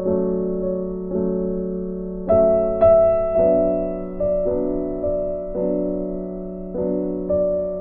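Slow, gentle solo piano background music: sustained chords and single notes struck every half second to a second, each fading away.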